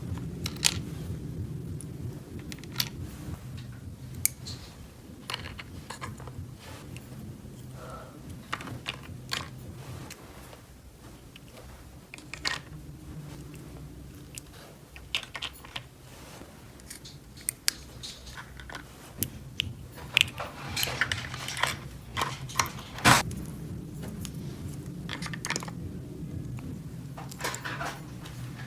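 Small plastic toy pieces clicking and tapping as they are handled, with a few stretches of rustling, over a low steady hum.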